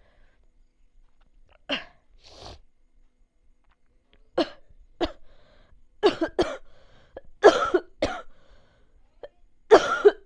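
Coughing: a series of short coughs, single ones at first, then quicker runs of two or three, about a dozen in all.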